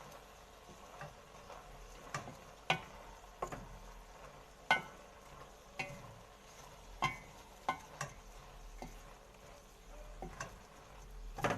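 Cooking utensil knocking and scraping against a pot while onion and garlic in olive oil are stirred: about a dozen irregular sharp clicks, some with a brief metallic ring.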